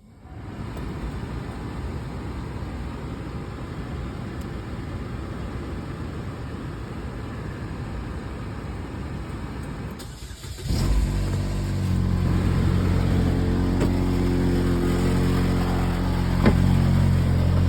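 Cold car engine running, with the unexplained noise from the timing side of the 185,000-mile engine that shows up when it is cold. About ten and a half seconds in it suddenly gets louder, with a steady low hum, and there is one sharp click near the end.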